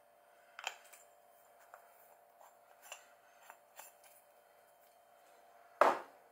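A few light, irregular clicks and taps of things being handled on a tabletop, then one loud thump near the end as a hand knocks against the camera, all over a faint steady hum.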